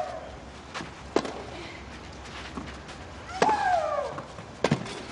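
Tennis rally: racket strikes on the ball ring out as sharp cracks every second or so. About three and a half seconds in, one stroke comes with a player's long shriek that falls in pitch.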